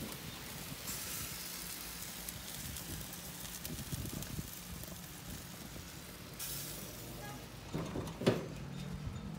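Chicken drumsticks sizzling on a gas grill, a steady hiss that swells twice, with a knock about eight seconds in as the grill lid is shut.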